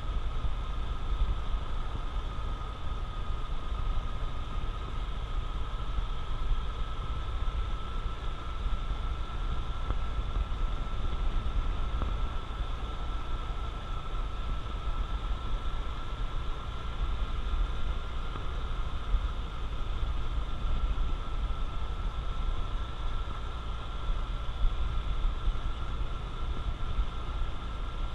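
Honda CT125 Trail 125's single-cylinder engine running at a steady cruise, with a steady high whine and heavy low wind rumble on the microphone.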